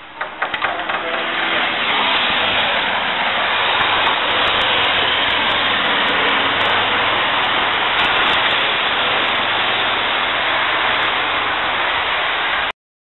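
A loud, steady rushing noise, with a few clicks in the first second; it cuts off suddenly near the end.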